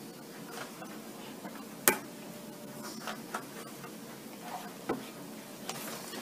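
A few sharp plastic clicks and taps as a USB cable is plugged into a small power bank and the pack is handled on a wooden table, over a faint steady hum. The sharpest click comes about two seconds in, another about five seconds in.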